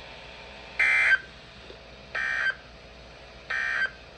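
Three short warbling data bursts of Specific Area Message Encoding, about a second and a half apart, sent over NOAA Weather Radio: the EAS end-of-message code that closes a severe thunderstorm warning.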